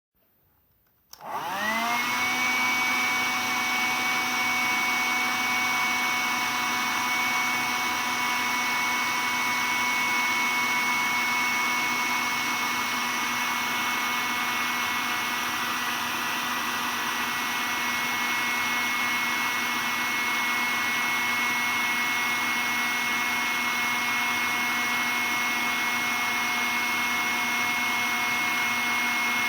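Cordless stick vacuum cleaner switched on about a second in, its motor spinning up to speed with a rising whine, then running steadily with a constant high whine over an even rush of air.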